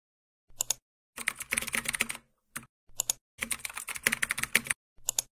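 Computer keyboard typing: two quick runs of keystrokes and a few short separate clusters of key clicks between and after them, with dead silence in the gaps.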